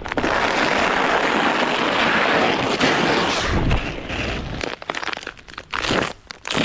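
Steady rushing scrape of a makeshift sled sliding over ice, starting suddenly and dying away about four and a half seconds in, followed by scattered crackles and crunches.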